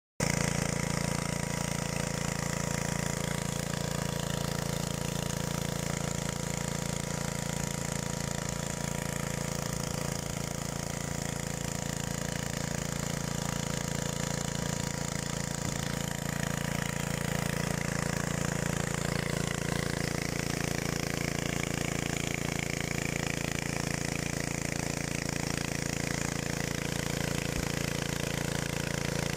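Walk-behind motor hoe with a small vertical-shaft petrol engine running steadily under load as its rotary tines churn through dry soil.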